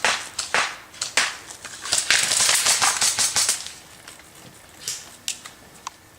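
Airsoft rifles firing semi-automatic shots as sharp snaps: a few spaced shots, then a quick flurry about two seconds in, then a few scattered shots near the end.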